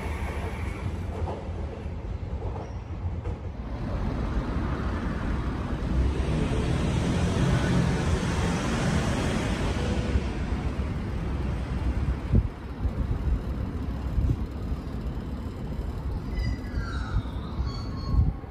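Train running on the track: a steady low rumble that swells about four seconds in and eases off after about ten seconds. A short falling squeal comes near the end.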